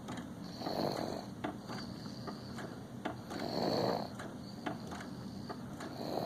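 A 7½-month-old baby snoring in his sleep, a noisy snore on the breath roughly every three seconds.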